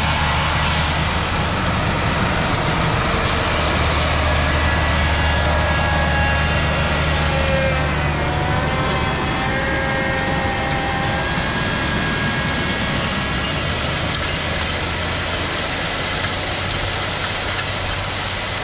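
Tracked John Deere tractor pulling a Horsch seed drill past, its engine running steadily under load with a whine that drops in pitch as the rig goes by about eight to ten seconds in.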